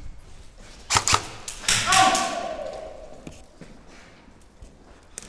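A few sharp airsoft rifle shots about a second in, then a drawn-out shout that fades over a second or so.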